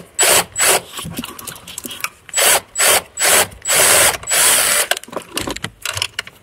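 Ratchet clicking in a run of short back-strokes as it works a T30 Torx bolt loose on the engine's balance-shaft belt cover. Three quick strokes come first, then a pause of about a second and a half, then five more strokes that grow longer.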